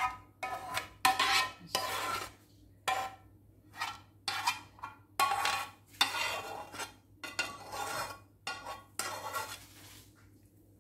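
A metal spoon scraping and clinking against a pan in a dozen or so short strokes as the sauce is scooped out over the fried chicken wings, with a faint steady hum underneath.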